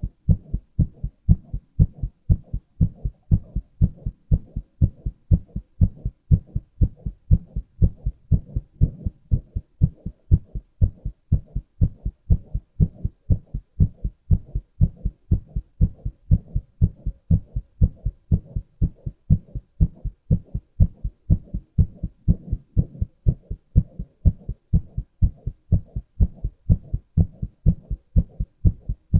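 A man's heartbeat recorded close up: a steady, even rhythm of low lub-dub thuds.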